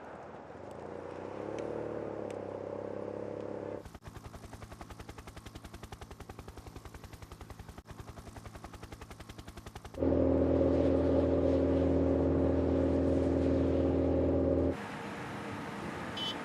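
Motor-vehicle noise from a road race, cut together in sections: a fast, even clatter for about six seconds, then a loud, steady engine drone that cuts off suddenly near the end.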